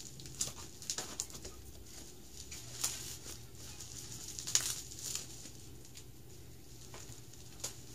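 Bubble wrap crinkling and rustling in the hands as a thick plastic wrapping is pulled apart, in irregular crackles with the loudest about four and a half seconds in.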